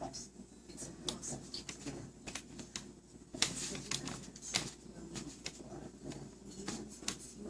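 A baby eating with her hands: irregular light clicks, smacks and scrapes, a few a second, over a faint steady hum.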